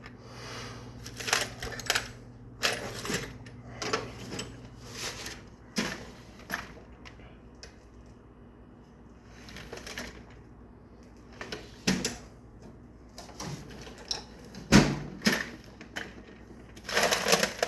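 Irregular clinks, clacks and knocks of hand tools and hardware being rummaged through while someone searches for a tool, with one louder knock about three-quarters of the way in.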